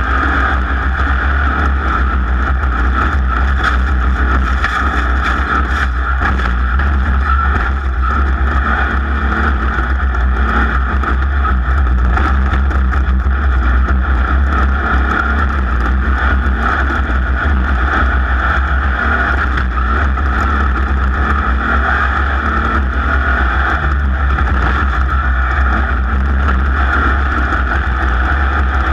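Off-road race vehicle running flat out at a steady pace, its engine a constant loud drone mixed with driving noise.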